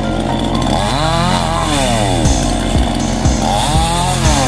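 Chainsaw engine revving up and dropping back twice, about a second in and again near the end, with music and a steady beat behind it.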